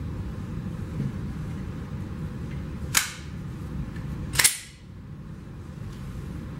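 Two gunshots about a second and a half apart, the first about three seconds in and the second slightly louder, over a steady low background rumble.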